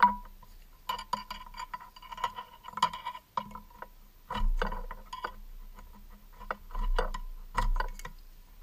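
Sharp metallic clicks and clinks of a hand tool being worked at the steering knuckle, around the front ABS wheel-speed sensor's mount. There is a loud clink right at the start and a quick run of clicks for a couple of seconds, then a handful of separate louder knocks.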